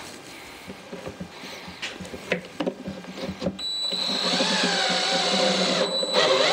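Cordless drill driving a pocket-hole screw into a wooden drawer box. A few light clicks and taps as the screw is set on the bit, then the motor runs with a steady whine for about two and a half seconds, rising in pitch near the end.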